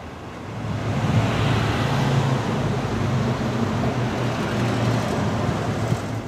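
Road traffic noise: a motor vehicle's engine hum and tyre noise swell about a second in, hold steady and cut off at the end.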